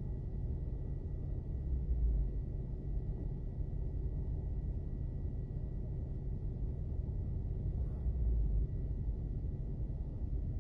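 Low, steady rumble heard inside a car's cabin while it sits stopped in traffic with its engine idling, swelling briefly twice.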